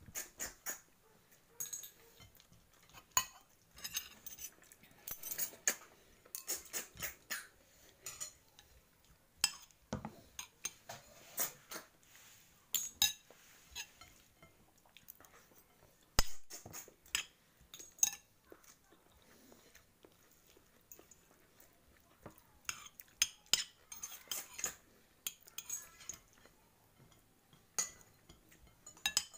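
Spoon and fork clinking and scraping against a ceramic plate during a meal: irregular sharp clicks, with a few quiet pauses.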